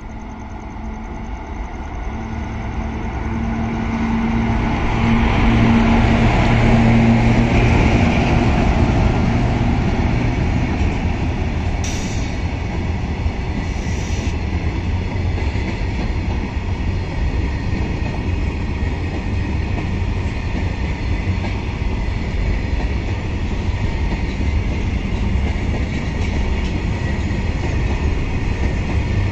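Indian Railways WAG-7 electric locomotive passing with a steady low hum, loudest about six to eight seconds in. A long rake of BOBYN ballast hopper wagons follows, its wheels rumbling steadily along the rails.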